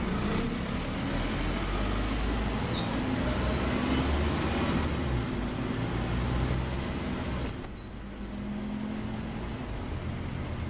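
Scania OmniCity double-decker bus heard from inside the passenger saloon while under way: a steady low diesel engine and drivetrain rumble with road noise. The sound drops off briefly about three quarters of the way through, as if easing off or changing gear, and then carries on a little quieter.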